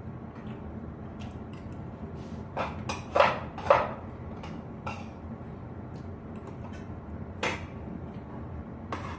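Spoons and forks clinking and scraping against ceramic plates during a meal, with a cluster of sharp clinks about three seconds in and another clink later on. A steady low hum runs underneath.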